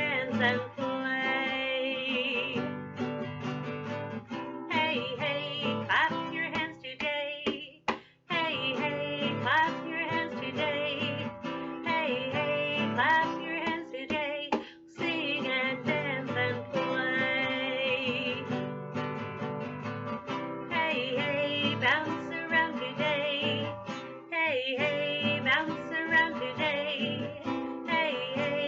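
A song played on a strummed acoustic guitar, with a woman singing over it.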